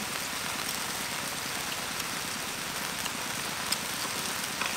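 Beef pieces sizzling in butter and fat in a large wok: a steady frying hiss with scattered small pops.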